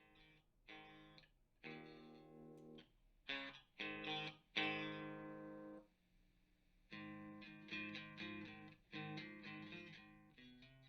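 Electric guitar played through an amplifier and speaker cabinet: a run of strummed chords, some left to ring for a second or more and others cut short, with a pause about two-thirds of the way in.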